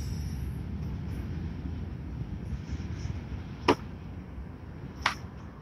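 Low, uneven rumble of outdoor background noise, with two sharp clicks a little under a second and a half apart near the end.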